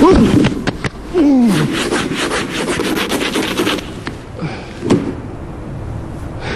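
Rapid scraping and brushing strokes clearing packed snow off a car. A short pitched sound falls steeply about a second in, and a single sharp hit comes near the five-second mark.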